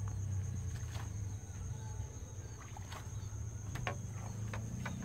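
Rice-field ambience: insects buzzing in a steady high tone over a low steady hum, with a few scattered light clicks.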